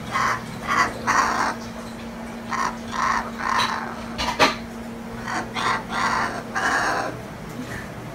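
Pet cockatoo giving a series of about ten short, harsh, raspy calls, the growling 'dinosaur' noises, with a sharp click about four and a half seconds in.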